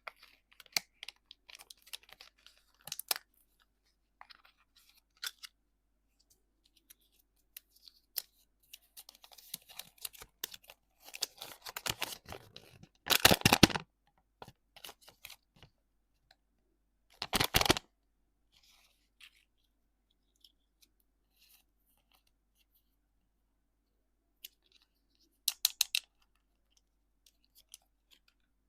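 Candy packaging being handled and torn open: scattered crinkles and clicks with quiet gaps, a loud stretch of crackling tearing about halfway through, a shorter burst a few seconds later, and a quick run of sharp clicks near the end.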